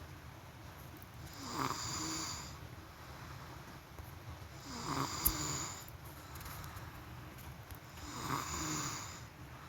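A sleeping person snoring steadily, three snores about three and a half seconds apart, each lasting about a second.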